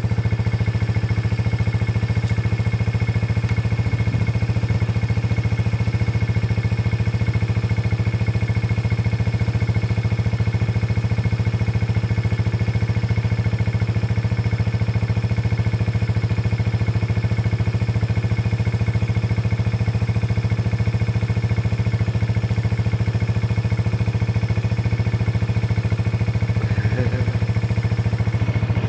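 Quad engine idling steadily, with no change in pitch or level.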